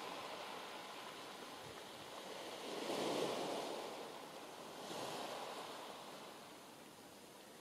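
Sea waves breaking and washing on the beach: an even rush of surf that swells twice, loudest about three seconds in and again about five seconds in.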